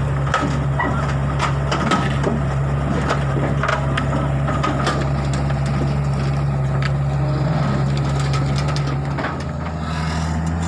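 Hitachi Zaxis 48U mini excavator's diesel engine running steadily, with irregular knocks and clanks from its tracks as it crawls down off a trailer and its ramps. About nine seconds in, the engine note changes.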